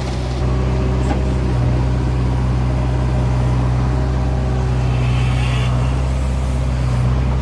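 A motor engine running steadily with a constant low hum.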